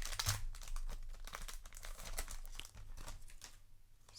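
Foil trading-card booster pack wrapper crinkling and being torn open by hand, a dense run of crackles that thins out near the end.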